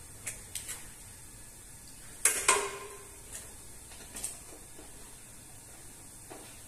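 Light clicks and knocks of kitchen utensils and cookware, with two loud metallic knocks a couple of seconds in that ring briefly, like a metal pot or lid being struck.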